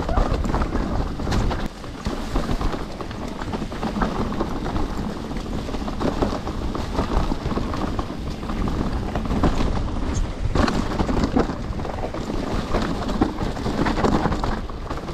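Mountain bike riding down a trail: steady wind noise on the action camera's microphone and tyre rumble, with frequent sharp clattering knocks as the bike rattles over bumps.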